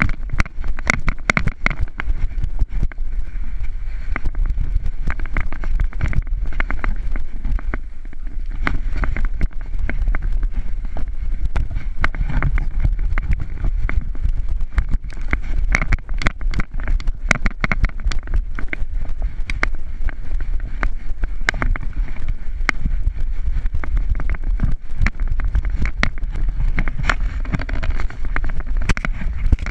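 Muffled wind buffeting and rumble on a moving action camera, with many irregular knocks and bumps as it is carried at a run over rough dirt ground.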